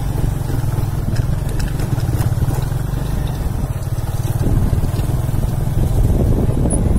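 Motorcycle engine running steadily, a low even rumble of rapid firing pulses.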